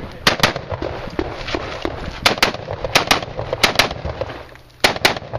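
AR-15 rifle fired in quick double-taps: five pairs of sharp shots. One pair comes right at the start, and the other four follow about half a second to a second apart in the second half.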